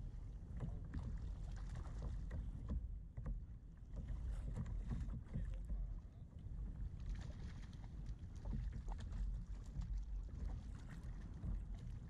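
Choppy sea water slapping and splashing irregularly against a plastic fishing kayak's hull, with wind rumbling on the microphone underneath.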